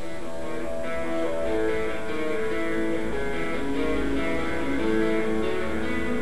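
Guitar music playing from a radio broadcast, a run of held notes changing about every half second.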